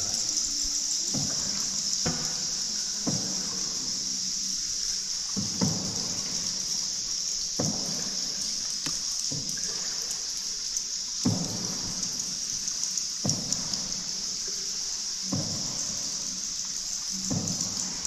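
A boat paddle dipping into river water about every two seconds, each stroke a splash trailing into drips, under a steady high hiss.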